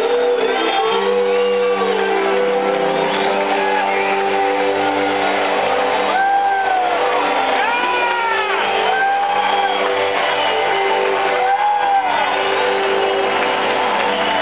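Live rock band with electric guitars and drums playing in a large hall, sustaining chords, while audience members let out several rising-and-falling whoops over the music.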